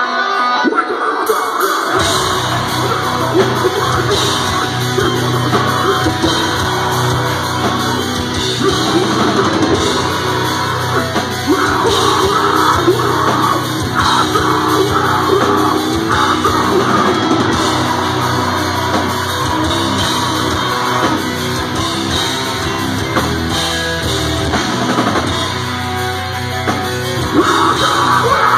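Deathcore band playing live: a lone distorted electric guitar, then the drums and bass come in about two seconds in for a heavy full-band passage, with a screamed vocal over it.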